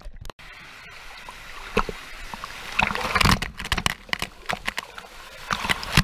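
Water heard through a submerged waterproof action camera: a dull, steady underwater wash. About three seconds in the camera comes up into heavy splashing and pouring water, with sharp irregular splashes and sloshing.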